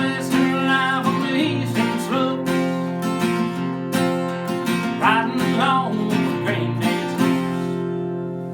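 Acoustic guitar strummed in a country style, chords ringing on; the last chord near the end is left to ring out and fade.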